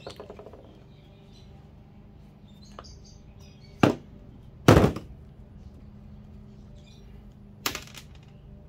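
Hand cutters snipping metal pins off power plugs on a bench: a few light ticks at first, then three sharp clacks, two close together a little before halfway, the second the loudest, and one more near the end.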